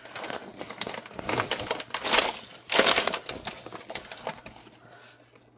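A metal zipper on a woven leather purse being pulled open in short rasping runs, with rustling as the bag is handled. The loudest strokes come about two and three seconds in, then the sound dies away.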